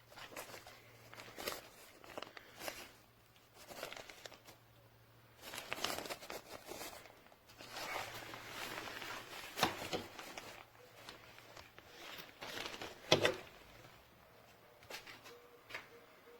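Thin plastic sheeting crinkling and rustling in irregular handfuls as it is handled, with one sharp knock about 13 seconds in.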